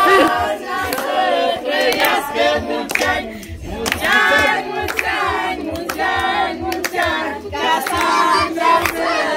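A mixed group of adults and children singing a birthday song together, with hands clapping along.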